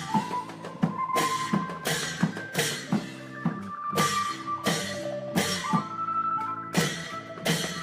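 Isan klong yao long-drum ensemble playing a driving rhythm, with sharp drum and cymbal strikes a little more than once a second and held melodic notes over them.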